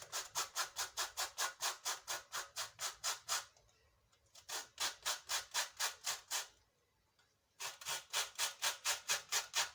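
Lemon peel being grated on a hand grater: quick back-and-forth scraping strokes, about five a second, in three runs with two short pauses.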